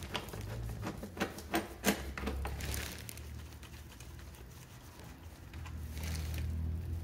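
A hand tool clicking and tapping against screws and the scooter's plastic body panel as the screws are loosened, with a few sharp clicks in the first two seconds or so, over a low steady hum.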